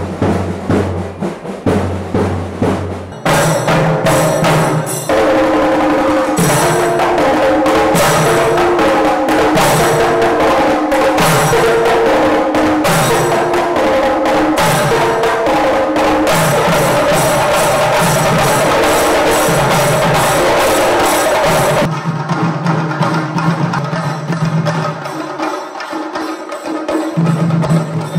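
A group of Kerala chenda drums beaten with sticks in a fast, loud, driving rhythm, mixed with music that carries sustained melodic notes. The sound changes abruptly about three seconds in and again near the end.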